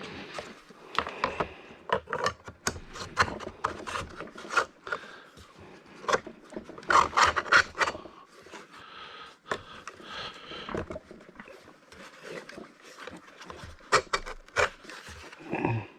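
Irregular rasping and scraping of metal on metal as steel hinge parts are worked by hand, in uneven strokes with a few clicks, loudest about seven seconds in.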